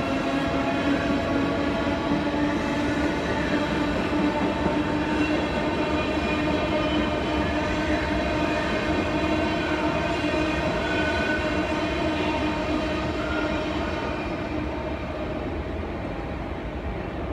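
SBB electric passenger train at a platform, giving off a steady electric hum with several high whining tones. A few short gliding whines come and go, and the sound grows fainter over the last few seconds.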